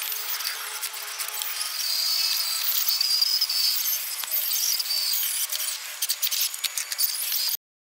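A 1/10-scale RC crawler driving: its small electric motor and gears whine, with scattered clicks and crackles from the tyres on rock and gravel. The sound cuts off abruptly near the end.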